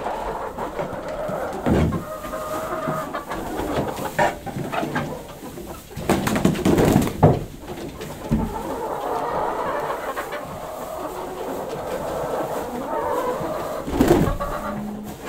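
Domestic hens clucking and crooning together, with several knocks and scrapes in between.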